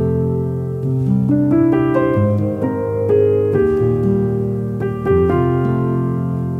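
Background piano music: slow, soft notes and chords, each held and overlapping, with a new note or chord about every half second to a second.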